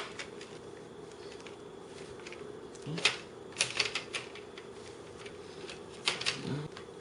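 Plastic locking clips of a Compaq CQ56 laptop's screen bezel snapping loose as the bezel is pried off by hand: sharp clicks in short clusters, about three, four and six seconds in, over a faint steady hum.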